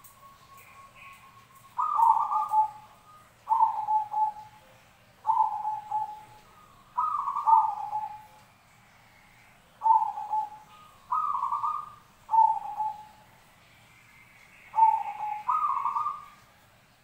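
Zebra dove (perkutut) cooing: about nine short rolling coo phrases, starting about two seconds in, with short pauses between them.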